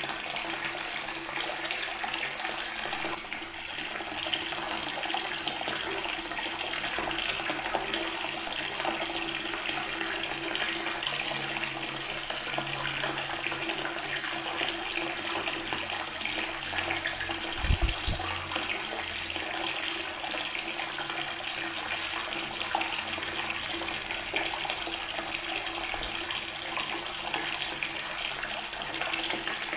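Water tap running steadily, the stream splashing onto stone. A brief low thump about eighteen seconds in.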